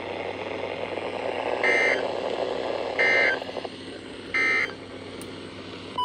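EAS end-of-message (EOM) signal: three short, buzzy bursts of SAME digital data tones, about 1.3 s apart, over a steady radio hiss that weakens after the second burst.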